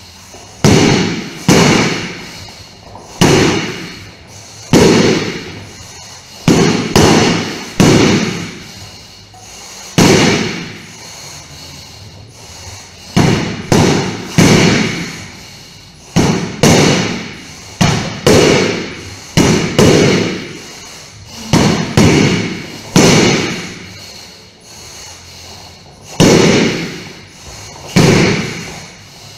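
Training sword striking a hanging heavy punching bag in repeated, irregular blows, about twenty in all and sometimes two in quick succession. Each blow is a sharp smack that dies away over about half a second.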